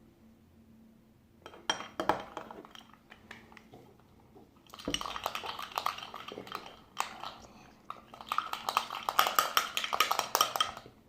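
A utensil repeatedly clicking and scraping against a bowl as a slime mixture is stirred: a short burst, then about six seconds of quick continuous stirring.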